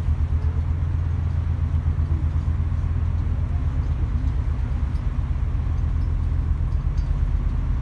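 Steady low rumble of the car ferry St Clare under way, heard on its open deck, with wind buffeting the microphone.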